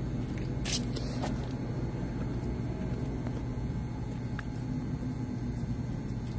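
Steady low mechanical hum, like a running engine or machinery, with a couple of sharp clicks about a second in.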